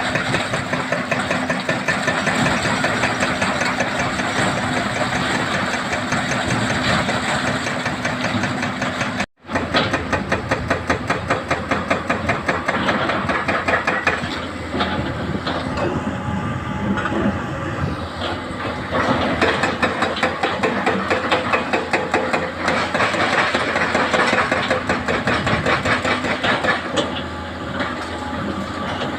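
Heavy diesel machinery working: excavator and dump truck engines running. The sound cuts out for an instant about nine seconds in, followed by a few seconds of rapid regular pulsing.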